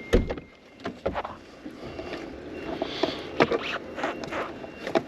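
Irregular clicks, knocks and rubbing from hands handling car parts and tools, with a dull thump just after the start.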